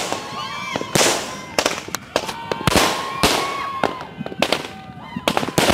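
Fireworks going off in quick succession, a sharp bang about every half second, with whistling tones that rise and hold between the blasts.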